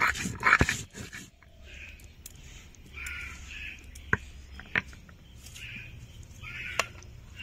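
A quick run of loud, rough strokes in the first second, then a few sharp clinks of kitchen utensils, with birds calling in the background.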